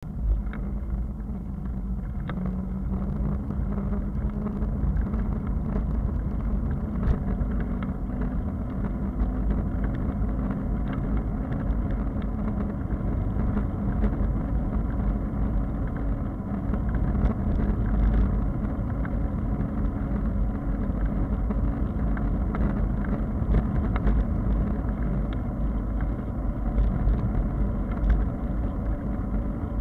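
Steady low wind rumble on a bicycle-mounted camera's microphone, mixed with the bicycle's tyres rolling on wet asphalt, with scattered light clicks throughout.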